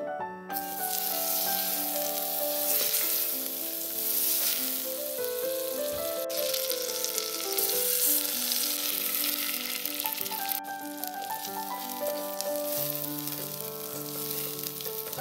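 Food sizzling as it fries in a hot pan, a dense steady hiss that starts suddenly about half a second in, over background music.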